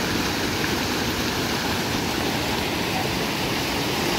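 Floodwater rushing steadily: a loud, even roar of water with no break.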